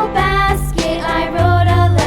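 Upbeat background music with a steady beat and a melodic, voice-like lead.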